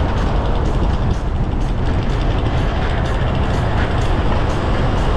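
Steady wind rush and road rumble while riding a Yamaha Nmax 155 scooter at speed, with the scooter's engine running underneath, heard through an action camera's microphone exposed to the wind.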